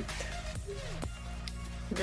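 Soft background music with steady low notes.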